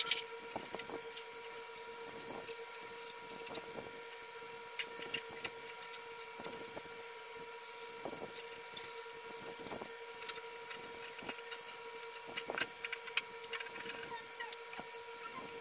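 Hollow plastic toy parts knocking and clicking against each other at irregular moments as they are handled and fitted together, over a steady high-pitched hum.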